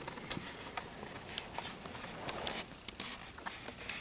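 Faint scattered clicks and soft rustles of handling noise, with no steady sound.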